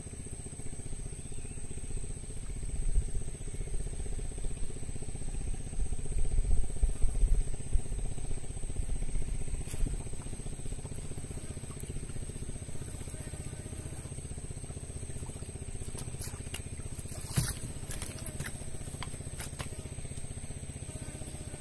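Steady low rumble with uneven low-pitched buffeting, like wind on the microphone, strongest a few seconds in. A few sharp clicks come near the end.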